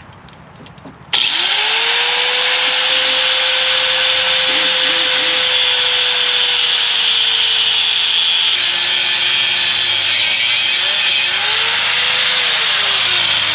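Handheld power tool cutting into a Jeep Wrangler's rusted steel frame, starting suddenly about a second in with a loud, steady hiss. Its motor whine rises as it spins up, then sags and recovers as the cut loads it.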